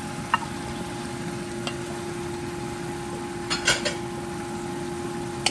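Food sizzling in a frying pan as it is stirred, with a metal utensil clinking against the pan a few times, including a quick run of clinks about three and a half seconds in. A faint steady hum sits underneath.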